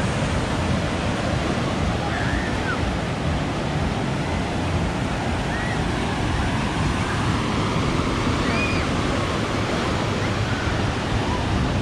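Steady wind noise on the microphone over a continuous wash of ocean surf.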